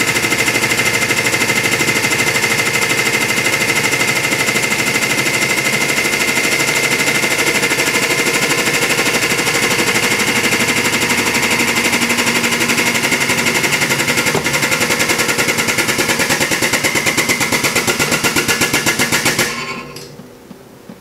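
Hydraulic press pump running with a loud rapid chatter and a steady high whine while the ram squashes an apple to pulp. It cuts off about a second and a half before the end.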